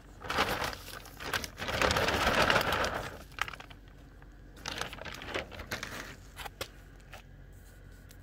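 A puppy digging and nosing in loose soil: scrabbling and rustling of dirt in bursts, loudest about two to three seconds in, then scattered small scratches.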